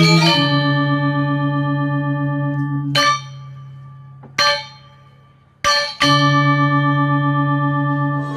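Intro music of deep, bell-like metallic tones struck and left to ring, the low notes pulsing slowly as they sustain. New strikes come about three seconds in, briefly at about four and a half seconds, and again at six, the sound dying down between them.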